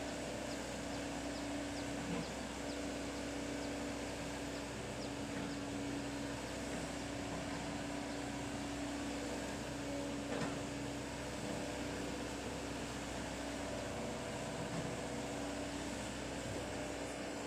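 Excavator's diesel engine running steadily at a constant pitch, with a couple of faint knocks.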